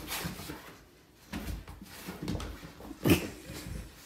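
A freshly bathed dog rolling on its back and rubbing its body hard against a rug: scuffling and rustling with soft knocks, and one short, low, falling grunt-like sound about three seconds in.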